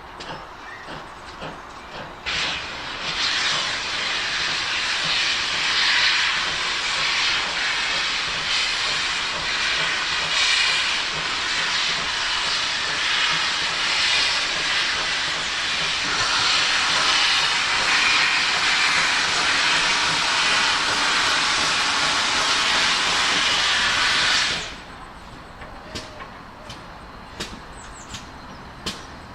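GWR 57xx class pannier tank steam locomotive letting off steam: a loud, steady hiss that starts suddenly a couple of seconds in and cuts off sharply a few seconds before the end.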